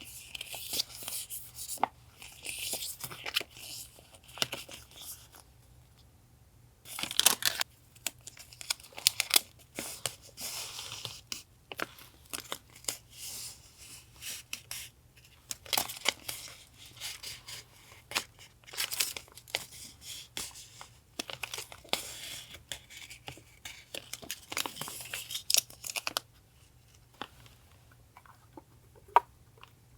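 Paper being handled for a journal collage: irregular bursts of tearing, crinkling and rustling with small taps and clicks, pausing briefly now and then, over a steady low hum.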